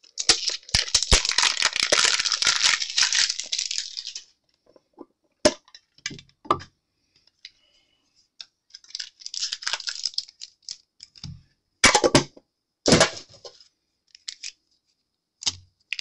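Plastic and foil packaging crinkling and tearing as a Pokémon TCG mini tin is unwrapped and a booster pack taken out. A long stretch of crinkling at the start, then scattered small clicks, more rustling, and two short sharp rustles near the end.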